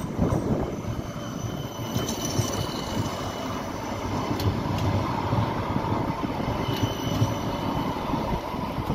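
West Midlands Metro CAF Urbos 3 tram passing close by at low speed: a steady rumble of wheels on rail with a thin high whine coming and going.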